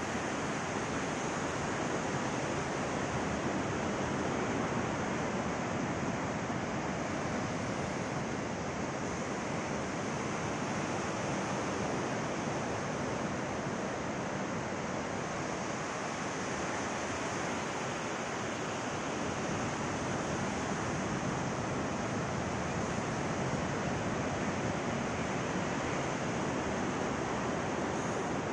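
Surf breaking on a sandy beach: a steady, even rush of waves.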